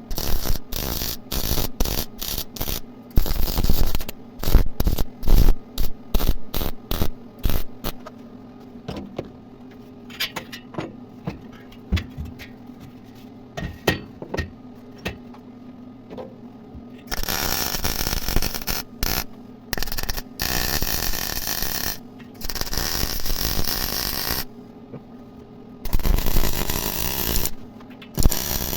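Metalworking: a rapid run of sharp taps and knocks over the first several seconds, sparser knocks after that, then, past the middle, four bursts of harsh hissing noise, each one to three seconds long.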